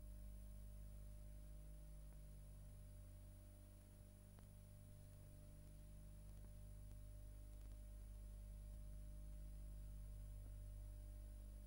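Near silence: a steady low hum with a faint high whine and hiss, and no music or voices.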